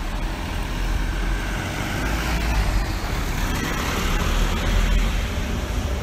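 Road traffic passing: a small box truck and a car drive through the intersection, their engine and tyre noise swelling to its loudest about four to five seconds in. Wind rumbles on the microphone throughout.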